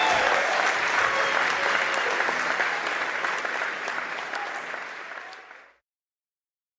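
Audience applauding at the end of a live song, fading out near the end.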